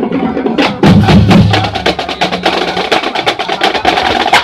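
Loud music driven by percussion: a dense run of sharp drum and block strikes over sustained instrumental tones.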